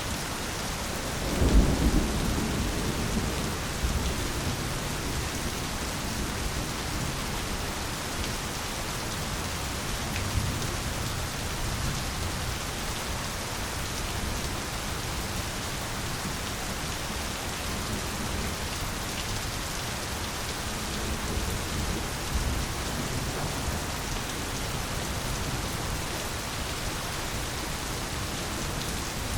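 Steady rain pouring down in a jungle, with a loud, low rumble of thunder about a second and a half in and a few fainter rumbles later.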